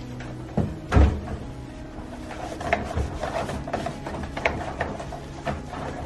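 Microwave oven door handled while being wiped with a cloth: a heavy knock about a second in as the door is bumped, then lighter clicks and the cloth rubbing over the door and its window.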